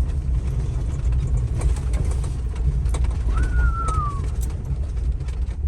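A large van driving on a backcountry road: steady low rumble of engine and tyres with a few light rattles. About three seconds in comes one short whine, falling slightly in pitch.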